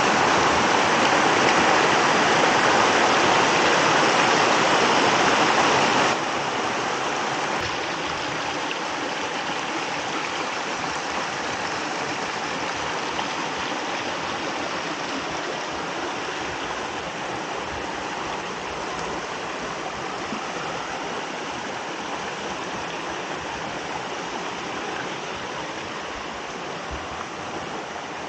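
Creek water rushing over rocks in small rapids, a loud steady hiss. About six seconds in it drops suddenly to a softer rushing that slowly fades.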